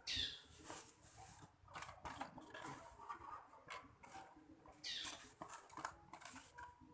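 Faint tapping, clicking and rustling as feed and water cups are handled and set into a bird cage, with a longer scrape at the start and another about five seconds in.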